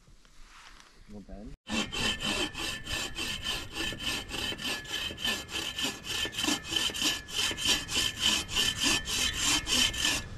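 A hand saw cutting through wood with quick, even back-and-forth strokes, starting about a second and a half in after a short quiet stretch.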